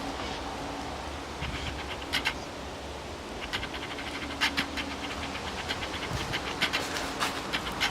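Camera lens autofocus motor on a Canon 700D hunting for focus: irregular sharp clicking ticks, with a faint low hum that comes and goes in stretches.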